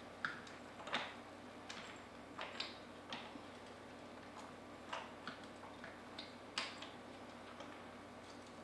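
Faint, irregular clicks and light taps of parts being handled on a Comet P40 diaphragm pump during disassembly, about ten in all, bunched in the first few seconds.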